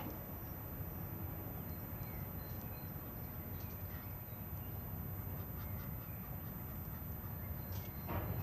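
Outdoor ambience: small birds chirp now and then over a steady low rumble, and a louder, harsher bird call comes near the end.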